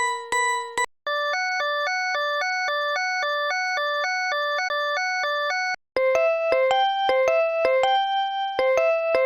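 Mobile phone ringtones made of electronic beeps, played one after another. One tune ends about a second in. After a short break comes a fast alternation between two notes lasting about five seconds, then another short break and a simple stepping beep melody.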